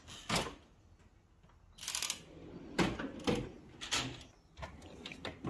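Metal tool-chest drawers sliding and shutting, a series of separate clacks and short sliding rushes.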